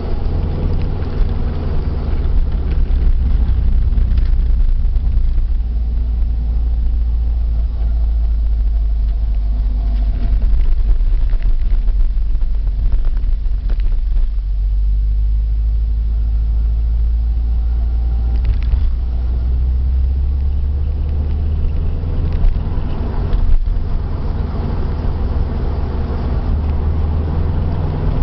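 Subaru Impreza GC8 on the move: a steady low rumble of road and running noise, within which a worn wheel hub bearing's abnormal noise is faint and hard to pick out.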